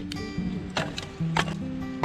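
Background music: held low notes that change pitch, with a couple of sharp drum-like hits.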